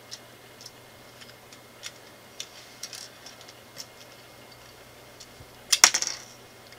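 Small LEGO plastic pieces being handled and pressed together: scattered light clicks, then a brief louder clatter of pieces near the end.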